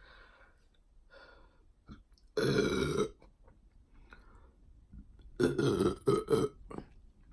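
A woman burping loudly: one long burp a little over two seconds in, then two more in quick succession near the end.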